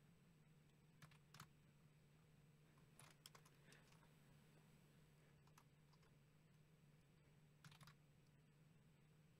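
Faint, scattered computer keyboard keystrokes and mouse clicks, a few isolated taps and one short cluster, over a low steady hum.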